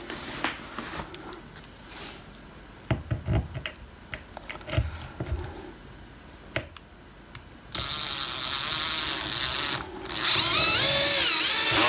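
Electric screwdriver driving a long hex screw into a door hinge. Small handling clicks come first. Then the motor whines twice, the second run louder, with its pitch dipping and rising.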